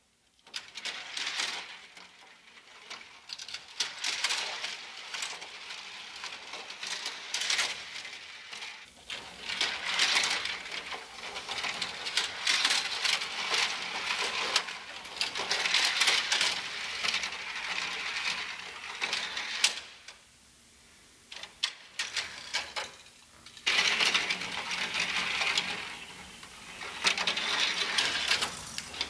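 Die-cast toy cars rolling and rattling down the plastic spiral ramps of a toy parking garage, in several long runs of clatter with a few seconds' pause about two-thirds of the way through.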